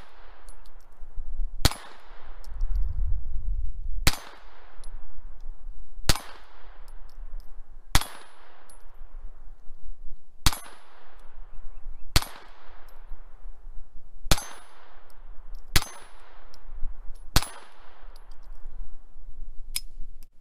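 A .22 rimfire pistol, a Ruger SR-22, fired in slow single shots: nine sharp cracks about two seconds apart, each followed by a fading echo.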